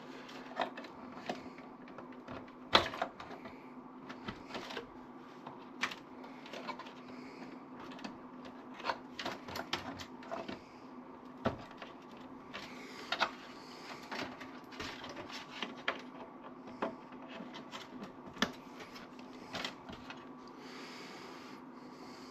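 Irregular clicks, taps and rattles of small computer parts being handled and fitted while a desktop PC with a new mainboard is reassembled, over a steady low hum. The sharpest click comes a little under 3 seconds in.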